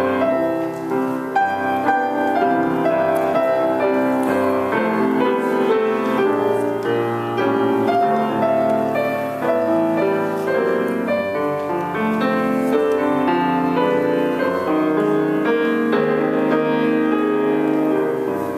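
Grand piano played four hands by two players at one keyboard: a steady flow of sustained notes and chords.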